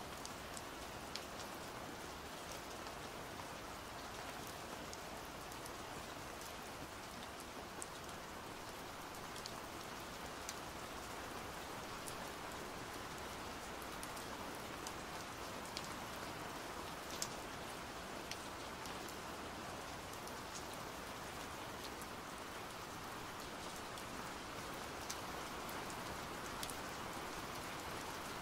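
Pouring rain: a steady even hiss dotted with scattered sharp ticks of drops.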